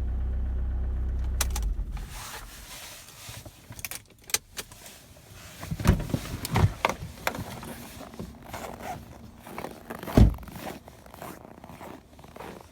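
Handling noises in a car: clicks, rustling and jangling like keys, with a few dull thumps, the loudest about ten seconds in. A steady low rumble fills the first second and a half, then stops; no engine is running.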